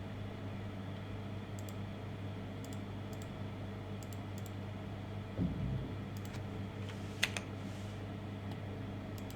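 Scattered clicks of a computer keyboard and mouse, several in quick pairs, over a steady low electrical hum. A low thump about five and a half seconds in and a sharper click a little before the end.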